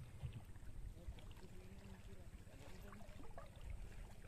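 Faint low rumbling background noise, with faint distant voices in the middle.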